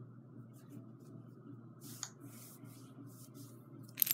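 Faint rustling of a hand moving over a dog's fur, collar and bedding, with a sharp metallic clink near the end as the dog's metal ID tag knocks against its leash clip.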